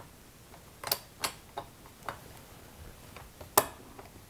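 Steel pliers jaws clicking and scraping against the stub of a broken muffler screw in a chainsaw cylinder as they try to get a grip on it, a handful of separate sharp clicks, the loudest about three and a half seconds in. The jaws are not getting a hold of the screw.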